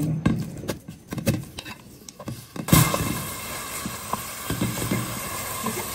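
Wooden spatula knocking and scraping in a metal pan as raw minced meat is stirred, then from nearly three seconds in a steady sizzle of the mince frying in oil.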